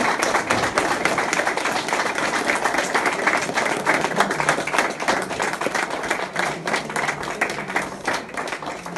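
A crowd of people clapping, dense and steady, thinning out near the end.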